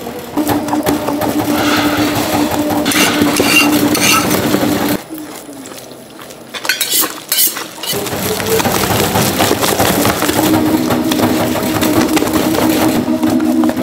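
Rice-cake pounding machine running, working steamed glutinous rice into dough in a granite bowl with a steady motor hum and clatter. About five seconds in it stops for some three seconds, with a few knocks as liquid is poured in, then starts again.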